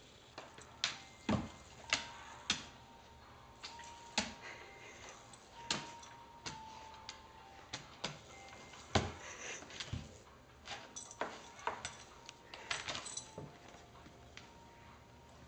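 A large dog's claws and paws tapping and scrabbling on a hardwood floor as it paws at a bug: irregular sharp clicks and taps, with several louder knocks.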